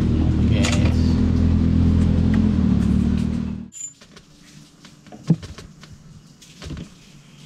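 An engine running steadily with a low, even hum, cut off abruptly a little past halfway. After it, quiet, with one sharp click and, a second and a half later, a softer knock.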